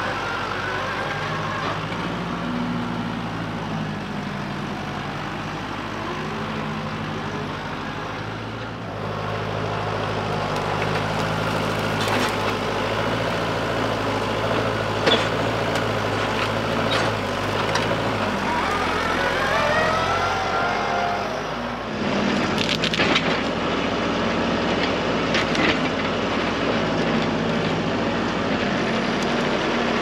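New Holland Workmaster 55 tractor's diesel engine running steadily while the loader grapple carries a stump into a brush pile, with sharp cracks and snaps of brush now and then. About two-thirds of the way through, a whine rises and falls.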